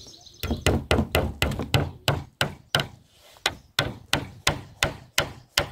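Claw hammer driving a nail through a wooden roofing batten into a rafter: a long run of sharp strikes, quick at first and then settling to about three a second.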